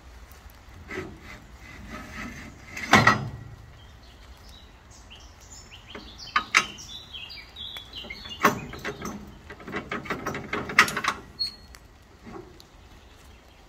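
Galvanised steel support leg and frame of a cable winch trailer being worked by hand: a series of metal clanks and rattles, the loudest about three seconds in. Birds chirp briefly in the middle.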